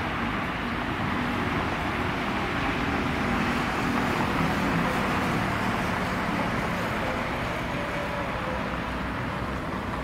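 Steady low rumble of road traffic, mixed with the fading rolling noise of the tail end of an empty freight train of grain hopper cars moving away.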